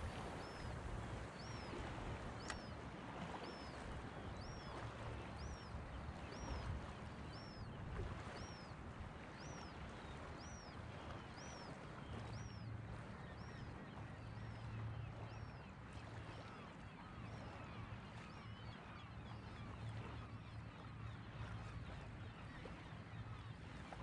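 Steady outdoor wind and water noise, with a short high chirp repeating about once a second through roughly the first half.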